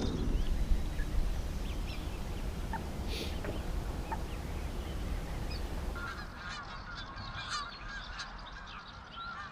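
Birds calling across the water, a run of short repeated calls starting about six seconds in, over a low rumble.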